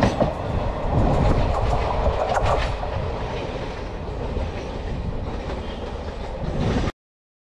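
Indian Railways express train's coaches rolling past with the clickety-clack of wheels over rail joints, the last coach going by. The sound fades as the train moves away, then cuts off abruptly near the end.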